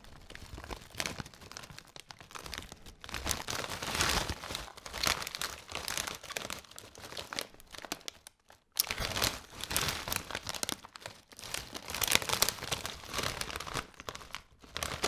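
Plastic crisp bag of Lorenz Crunchips crinkling and rustling as it is handled, with a brief pause a little past halfway.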